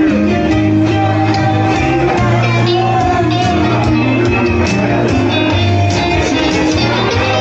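Music playing, with a bass line moving under sustained pitched notes.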